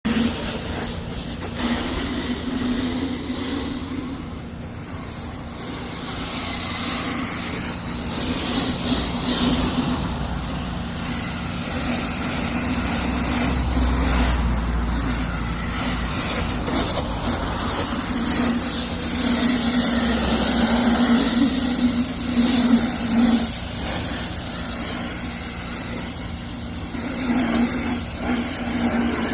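Soft-wash spraying rig working: a motor running steadily with the hiss of spray, which swells and fades.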